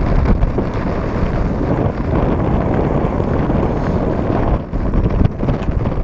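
Wind buffeting the microphone: a loud, rough, steady rumble with gusts, heaviest in the low end.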